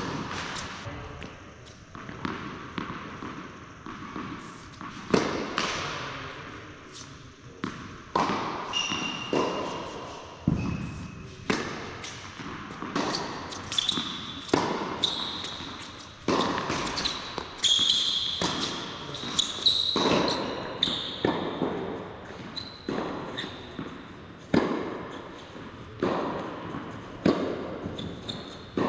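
Tennis rally on an indoor hard court: sharp pops of the ball off the rackets and off the court, about one a second, echoing in the large hall. Short high squeaks of shoes on the court come in for several seconds midway.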